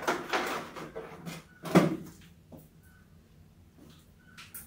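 Rats scrabbling and bumping about inside a glass box trap: a run of scratchy rustles and knocks in the first two seconds, the loudest knock just before two seconds in, then a few faint scrapes.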